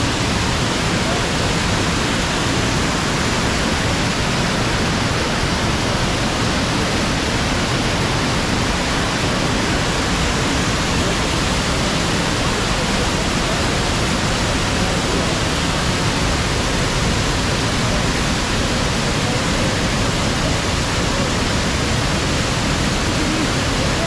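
Manavgat Waterfall, river water dropping over a cliff three to four metres high: a steady, loud rush of falling water with no pauses.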